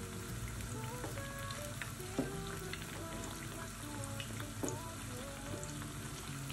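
Corn and batter fritters sizzling and crackling steadily in hot oil in a frying pan, with a couple of sharper clicks.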